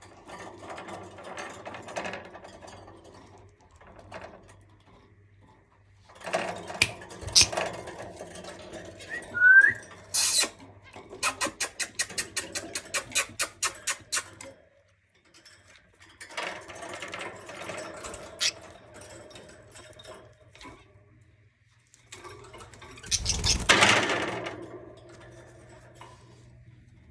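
Pet budgerigars chattering in bursts, with a short rising whistle about nine seconds in. Partway through comes a fast, even run of ticks, about six a second, and near the end a louder rushing burst.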